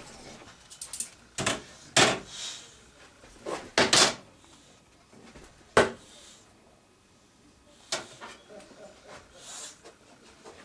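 A series of sharp knocks and clacks, some in quick pairs. The loudest come about two, four and six seconds in, with a softer one near eight seconds.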